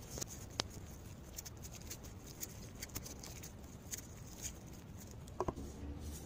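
Faint, scattered small clicks and light scrapes as a compression tester's threaded hose adapter is screwed by hand into a spark plug hole.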